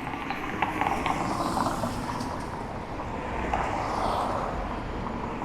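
City street traffic noise, steady and swelling a little about four seconds in as a vehicle passes, with scattered light clicks.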